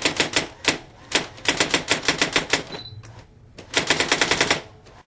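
Typewriter keystroke sound effect: quick runs of sharp key clacks, several strikes a second, in three or four bursts with short pauses between.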